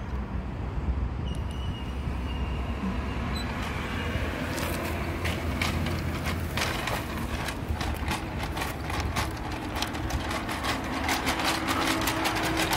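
Battery-powered toy cement mixer truck playing its electronic engine sound effect through a small speaker after its roof button is pressed. From about four and a half seconds in, a rapid run of clicks joins the engine sound.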